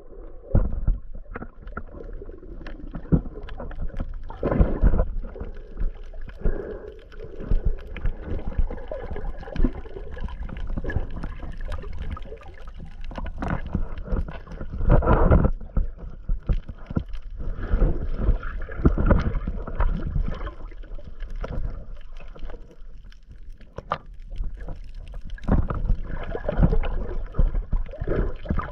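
Water sloshing and gurgling around a GoPro Hero 8 held underwater by a snorkeler, heard muffled through the submerged camera in irregular surges with scattered sharp knocks.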